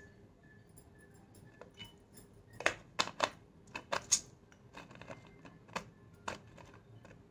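Lid being put on and screwed down on a small glass jar of black peppercorns: a quick run of sharp clinks and clicks about two and a half to four seconds in, then two single clicks near the end.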